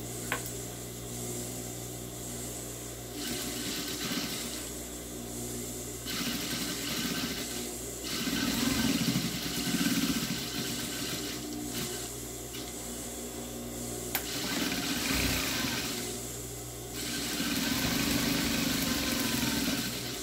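Industrial sewing machine stitching in runs of a few seconds, stopping and starting again several times, over a steady motor hum.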